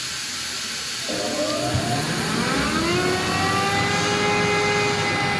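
Ingersoll Rand 11 kW rotary screw air compressor starting up over a steady hiss of air. About a second in, its whine rises in pitch as the motor and screw air-end spin up, then holds steady at running speed.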